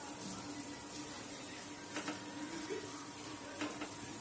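Spiced onion-tomato masala sizzling gently in a nonstick kadai as it is stirred and fried with a silicone spatula, with soft knocks of the spatula against the pan about two seconds in and again near the end. A faint steady hum runs underneath.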